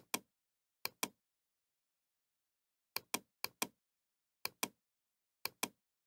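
A computer mouse button clicked six times, each click heard as a sharp press-and-release pair, against dead silence. Two clicks come in the first second, then four more spaced through the rest.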